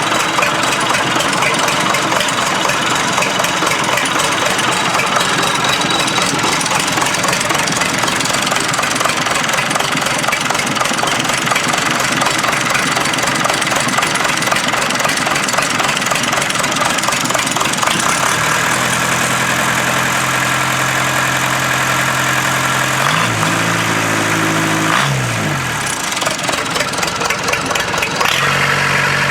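Freshly rebuilt Case 207D four-cylinder diesel engine running with a steady diesel clatter. Its speed changes briefly about 24 seconds in, and it runs a little quieter for a couple of seconds before coming back up near the end.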